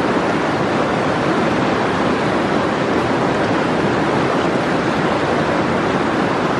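Fast, rocky mountain river rushing through rapids: a loud, steady rush of white water.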